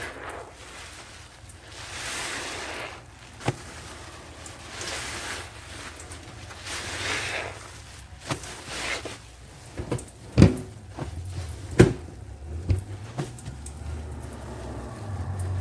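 A wet, soapy sponge squeezed by hand several times, each squeeze a swelling squish of suds and dripping liquid, with a few sharp knocks in between, the loudest about ten and twelve seconds in.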